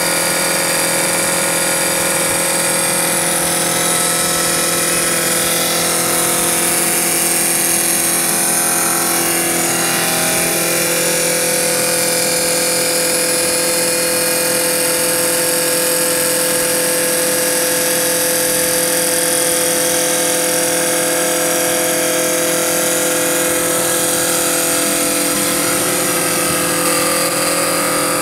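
CNC wood lathe turning a wooden spindle: a steady machine whine with the hiss of the cutter shaving the spinning wood. The tones of the whine shift slightly about ten seconds in.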